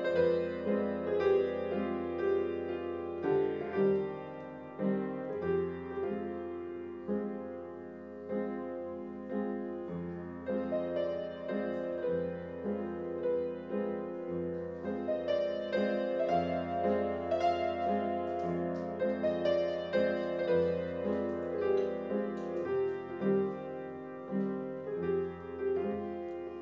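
Piano music: a slow melodic piece, one note or chord struck roughly every half second to a second.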